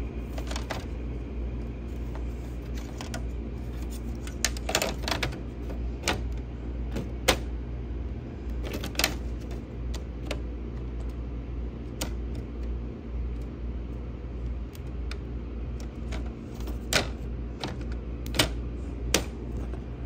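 Frigidaire FFRE08L3Q1 window air conditioner running with a steady low hum, while its plastic front grille louvers give off scattered sharp clicks as they are handled.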